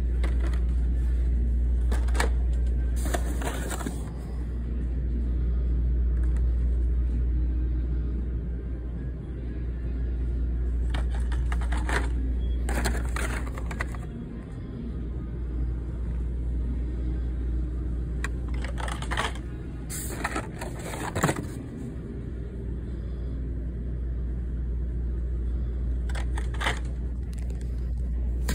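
Hot Wheels blister-pack cards being pulled from a cardboard shipping case and handled: clusters of short rustles and clicks of card and plastic, a few times, over a steady low rumble.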